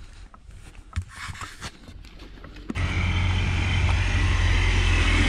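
A few faint clicks, then a sudden switch about three seconds in to a loud, steady rumble and hiss of motor-vehicle noise.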